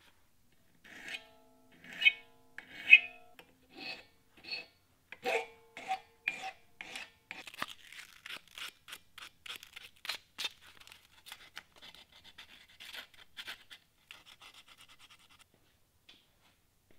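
Hammer striking the end of the cast iron pot's wire bail handle on a wooden block, shaping it. The first blows come one at a time and ring with a clear metallic pitch, the loudest about two and three seconds in. Then comes a fast run of lighter taps that stops shortly before the end.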